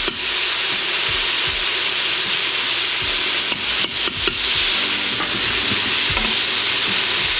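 Onions, carrots and minced garlic sizzling steadily in the Instant Pot's stainless steel inner pot on sauté, stirred with a wooden spatula toward the end.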